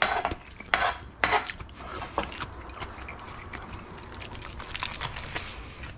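Aluminium foil wrapped around a sandwich rustling and crinkling as it is handled, with a few short crackly bursts in the first two seconds.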